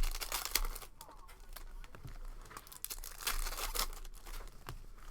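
Packaging being handled and torn open by hand: irregular crinkling and tearing in short bursts, with a sharp crackle at the start and a longer rustle about three and a half seconds in.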